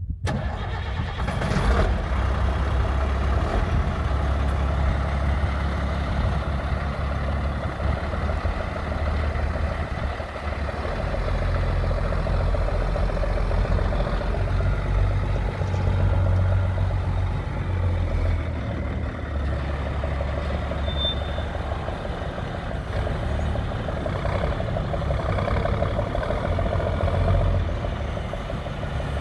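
Diesel engine of a 2001 International 4900 service truck running as the truck drives slowly, its low note rising and falling with the throttle.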